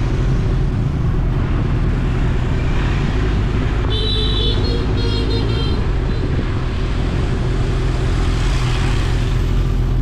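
Road vehicle and traffic noise: a steady low rumble, with two short high-pitched tones near the middle.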